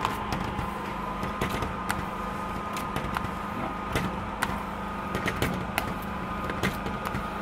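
Hand squeegee worked over wet window film on a glass pane, giving irregular sharp clicks and taps against the glass and frame. Underneath runs a steady mechanical hum with a faint high whine.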